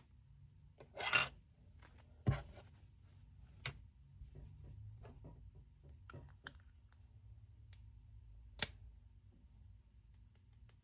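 A plastic protective case being fitted onto a smartwatch: a short scrape about a second in, then scattered clicks and taps, with one sharp snap near the end.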